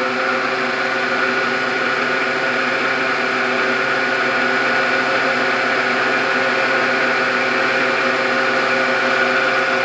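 Milling machine spindle running at a steady speed, a constant hum with several steady whining tones from the motor and drive.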